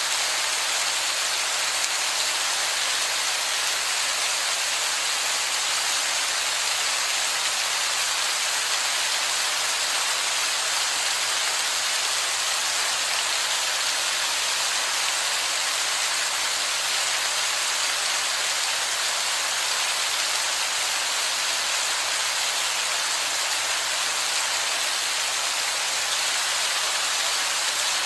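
Heavy shower of falling water splashing onto wet rock: a dense, even hiss that holds steady throughout.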